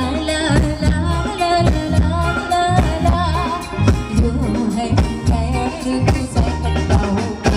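Live Thai ramwong band music played through a loudspeaker system: a sung vocal over a steady drum beat.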